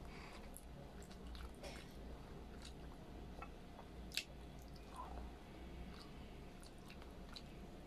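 Faint, close-miked chewing and mouth smacks of a person eating pork humba and rice, with scattered small wet clicks and one sharper click about four seconds in.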